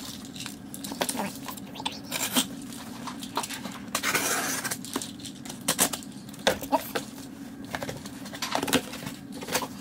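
Yellow box cutter slitting the tape on a cardboard shipping box: short scraping strokes and scattered clicks and taps against the cardboard, with one longer rasping cut about four seconds in.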